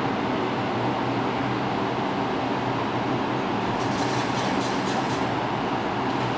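R142 subway train giving a steady hum and rumble, with a brief run of faint high clicks about four seconds in.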